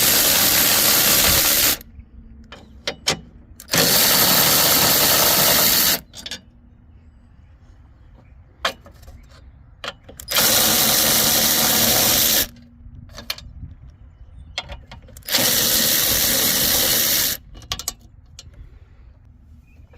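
Cordless power tool with a 13 mm socket spinning out bolts in four bursts of about two seconds each, with light clicks between them.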